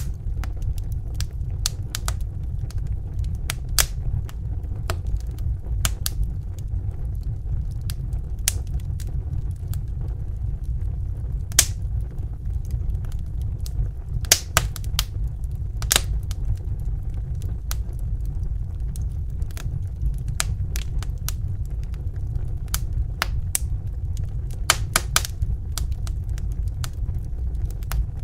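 Wood fire crackling: irregular sharp snaps and pops, a few louder than the rest, over a steady low rumble.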